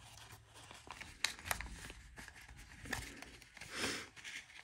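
Paper cash and envelopes rustling and crinkling as they are handled, with a few light clicks and taps in between and a longer rustle near the end.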